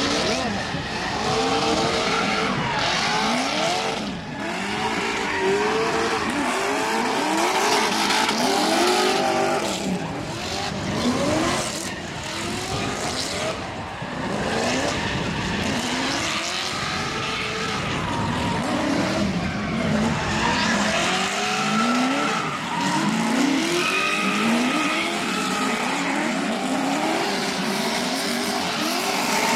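Drift car engines revving hard in repeated rising sweeps, with tyres squealing and skidding as the cars slide.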